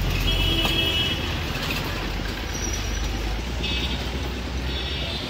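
Busy road traffic rumbling steadily, with short high-pitched horn toots sounding several times.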